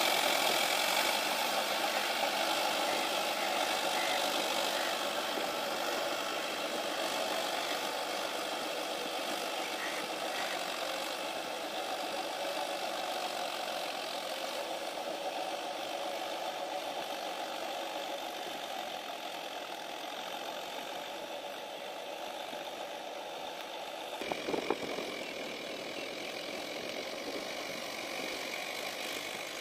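Swaraj 843 XM tractor's diesel engine running steadily while it pulls a rotavator through flooded paddy mud, slowly getting quieter as it moves off. A brief clatter about 24 seconds in.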